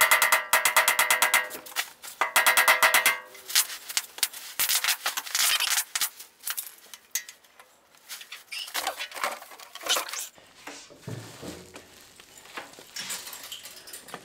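Hand work on a Willys MB steel windshield frame and its rubber seal: a fast, even chatter in two bursts over the first three seconds or so, then scattered clicks, taps and rubbing as the frame and seal are handled.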